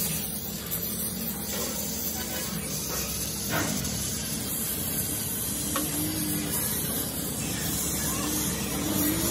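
Handheld gas torch hissing steadily as its flame melts a lead stick onto the cell posts of a lead-acid battery.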